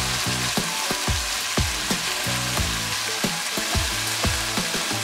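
Chopped vegetables sizzling as they sauté in an aluminium pressure cooker and are stirred with a slotted spatula. Background music with a steady beat and a bass line plays under it.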